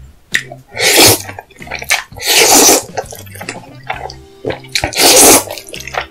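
Jjajangmyeon (black bean noodles) being slurped up loudly in three long slurps, about a second in, about two and a half seconds in and about five seconds in.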